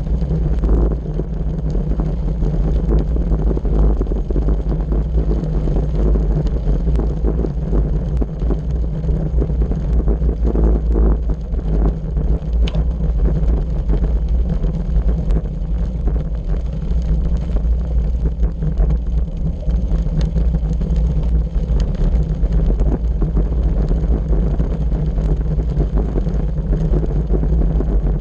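Bicycle riding over a white gravel road: the tyres crackle and crunch on loose gravel with many small clicks and knocks, over a steady low rumble of wind on the microphone.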